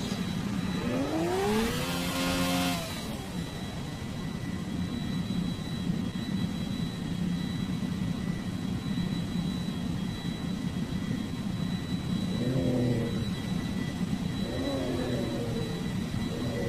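Toy cars rolling along a plastic playset track, giving a steady rumbling whir. A rising-and-falling tone comes about a second in, and several shorter gliding tones come near the end.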